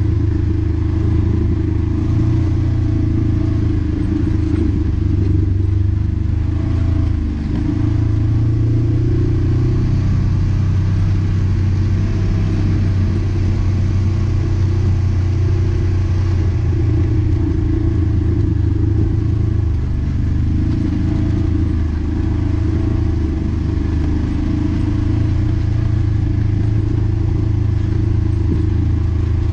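Side-by-side UTV's engine running steadily while driving a dirt trail, heard from inside the open cab, easing off briefly about seven seconds in.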